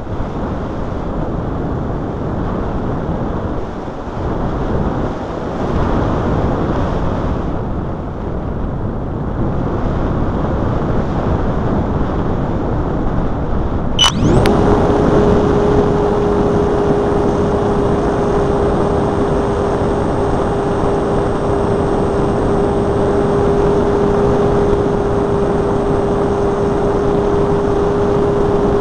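Rushing wind noise from a Multiplex Blizzard electric RC model plane gliding with its motor off. About halfway through, after a sharp click, its electric motor spins up and runs at a steady speed: a constant hum with a thin high whine above it.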